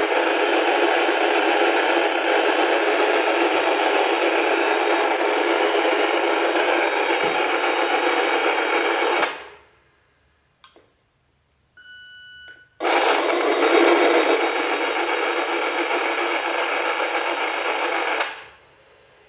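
FM two-way radio receiver hiss with the squelch open, a steady rushing static through a small speaker. It cuts off about nine seconds in, a single steady electronic beep of about a second follows, then the static opens again and cuts off shortly before the end.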